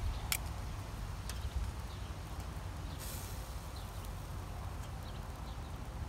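Bratwursts on a small charcoal kettle grill being turned with metal tongs: a few sharp metal clicks near the start, and a brief sizzle about three seconds in, over a low steady rumble.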